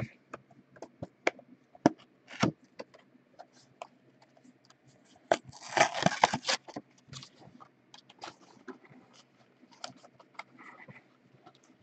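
Cardboard trading-card box being handled and opened: scattered taps and clicks of cardboard, with a burst of crinkling and tearing about halfway through as its plastic shrink-wrap is torn off.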